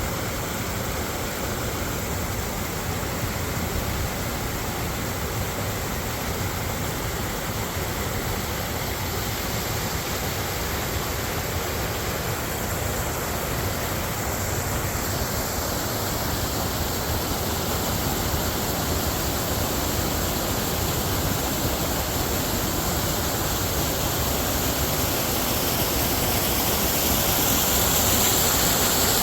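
CFMOTO CForce 500 ATV running along a trail, its engine under a steady rush of wind and riding noise, growing a little louder near the end.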